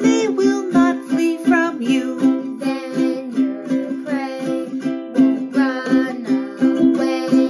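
Ukulele strummed in steady chords while a woman and a boy sing the verse of a children's song.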